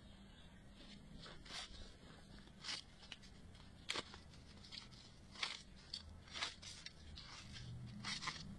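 Faint crinkling and scattered small clicks of a thin plastic film being handled and peeled off a sickle blade.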